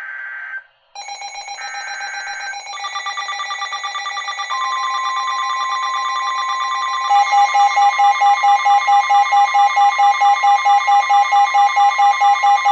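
Emergency Alert System broadcast tones: the short end-of-message data bursts, then layered electronic alarm tones that stack up. From about seven seconds in they become a loud beeping pulse about three times a second.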